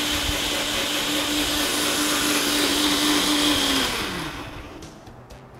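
Countertop blender running steadily, grinding fresh corn kernels with sour cream and salt into güirila batter. It is switched off about four seconds in and its motor winds down with a falling pitch, followed by a few light clicks.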